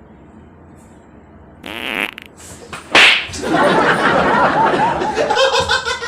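A loud fart breaks out about a second and a half in, with a sharp blast about three seconds in, followed by a few seconds of laughter.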